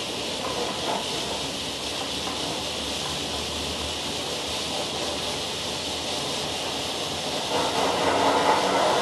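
Peak Tram, a cable-hauled funicular car, running down the track toward the station with a steady hiss. Its rumble grows louder about seven and a half seconds in as it draws near.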